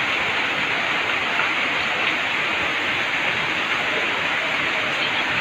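Heavy rain falling steadily, a dense, even hiss without a break.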